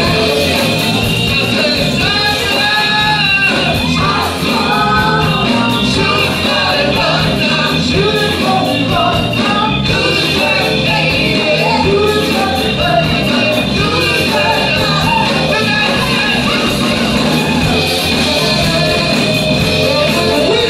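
Live soul band playing an up-tempo number, with drum kit, congas, keyboard and saxophone under sung and shouted vocals.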